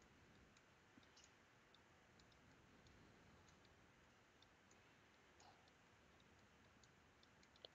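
Near silence: faint room tone with scattered light clicks.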